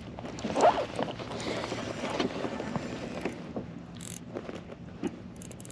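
Spinning reel cranked steadily as a fish is reeled in on a bent rod, with small knocks of handling against the kayak. A louder knock comes about half a second in.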